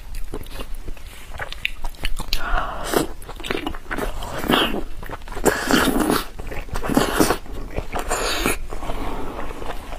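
Biting and chewing braised lamb intestine close to the microphone: a run of wet mouth clicks and smacks, densest through the middle seconds.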